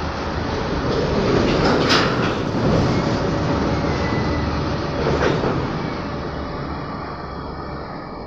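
Fully loaded goods train of covered box wagons rolling past on the track: a steady rumble of steel wheels on rails, with two sharp clanks about two seconds and five seconds in. The noise fades as the last wagons and the guard's brake van go by.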